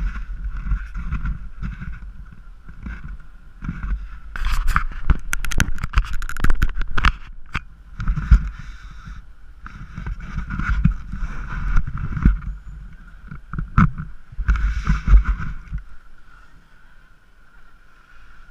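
Wind buffeting the action camera's microphone in gusts, with clicks and clatter of skis and poles on hard snow as the skier shuffles about, over a steady faint high hum.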